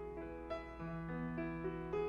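Background piano music: a gentle melody with chords, notes changing about every half second.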